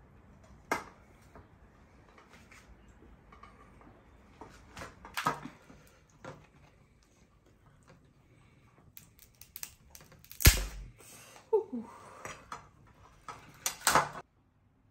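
Scattered clicks and knocks of objects being handled, with one heavy thump about ten and a half seconds in; the sound cuts off suddenly just before the end.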